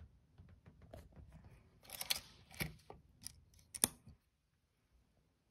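Handling noise from a Nikon EM 35mm film camera's controls at the ASA film-speed dial: a brief scraping rustle, then a few sharp clicks, the last and loudest a little under four seconds in.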